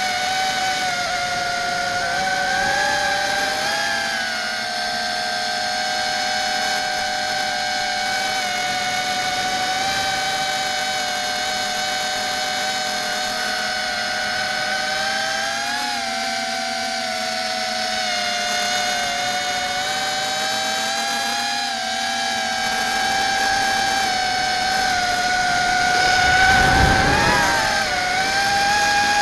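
Airblade ZMR150 mini racing quadcopter's brushless motors and propellers whining, picked up by its onboard camera. The pitch wavers up and down with the throttle, and near the end a short rush of noise comes with a dip in pitch.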